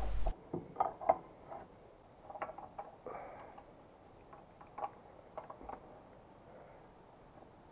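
A wrench and metal fittings clicking and scraping as a hose elbow fitting on a tank is worked back into place by hand: a handful of separate light taps with quieter handling noise between.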